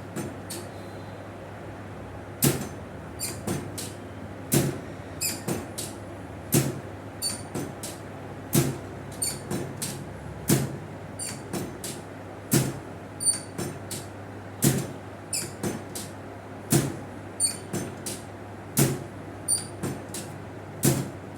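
Chiropractic treatment table knocking and creaking in a steady rhythm as the patient's spine is worked on: a sharp knock about every two seconds, with lighter clicks and short squeaks between.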